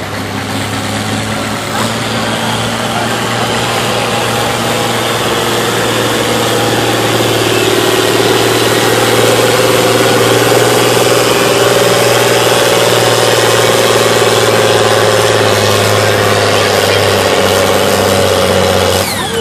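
Turbocharged six-cylinder diesel of a John Deere 4440 farm tractor running flat out under heavy load as it drags a pulling sled. It builds over the first few seconds and then holds loud and steady.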